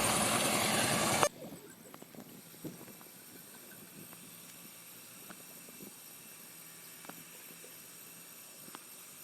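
A machine engine running loudly, cut off abruptly just over a second in. A low background follows, with a few faint scattered knocks and taps.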